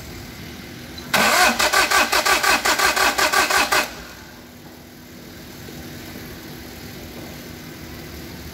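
Starter motor cranking a Daihatsu Charade three-cylinder turbodiesel engine for about three seconds, the compression strokes pulsing four or five times a second, before the cranking stops without the engine catching.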